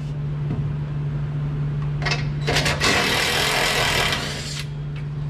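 Power wrench running for about two seconds, spinning a nut off the mounting bolt of a garbage truck packer-blade roller. A short click comes just before it, and a steady low hum runs underneath.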